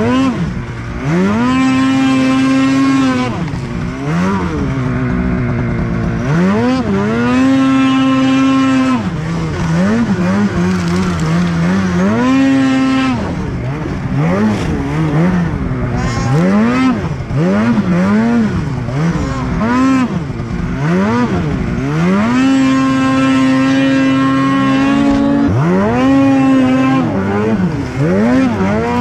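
Snowmobile engine revving up and down over and over while riding in deep snow. Each burst of throttle climbs quickly to a high pitch and holds it steady for a second or two, then drops off as the throttle is let go.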